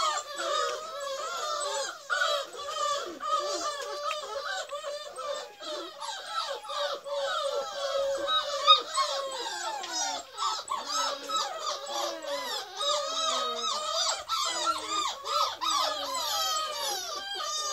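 A litter of beagle puppies whining and squealing together, many high cries overlapping without a break, with a brief sharp louder sound about halfway through.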